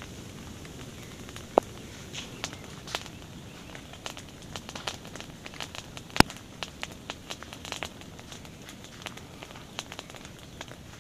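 Irregular crackling and popping from an advancing lava flow burning the leaf litter and plants in its path, over a steady low background noise. A sharp pop comes about one and a half seconds in, and the loudest pop about six seconds in.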